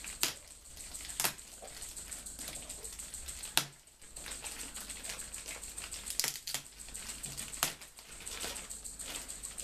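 Clear plastic bag crinkling and crackling as a boxed unit is worked out of it by hand, with several sharp crackles spread through.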